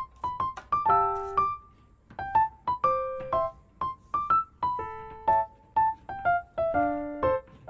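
Background music: a light, gentle piano melody of single notes and occasional chords.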